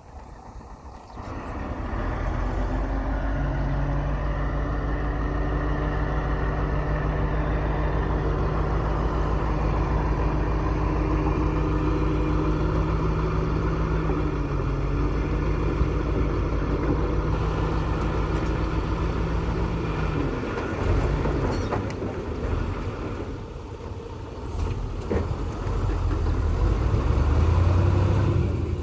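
Dump truck's diesel engine running steadily at constant speed. About two-thirds of the way through it eases off and wavers, then picks up again near the end.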